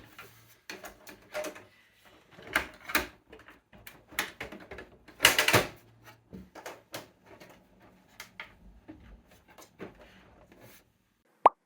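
Irregular plastic clicks, knocks and rustles of a new Epson ET-2820 printer and its packaging being handled, with louder clatters about two and a half and five seconds in. A short sharp pop comes just before the end.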